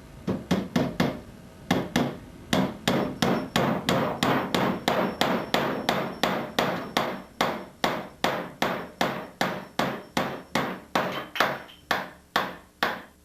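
Claw hammer driving nails into wooden boards: a steady run of sharp strikes, about two to three a second, with a couple of short pauses near the start.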